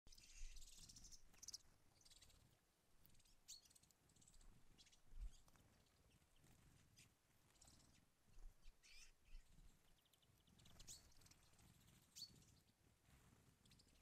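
Faint, scattered short chirping calls from a feeding flock of finches, chaffinches and bramblings, over a faint low rumble.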